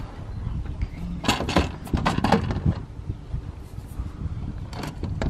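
Clunks and rattles of an aluminium-framed solar panel on tilt-mount brackets being lowered flat and shifted on the van's roof rails: a cluster of knocks about a second in and a few more near the end, over wind rumbling on the microphone.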